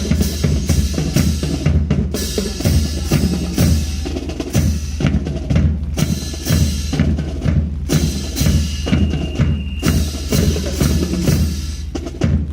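Marching percussion of a drill team playing: drums struck in a busy, steady rhythm.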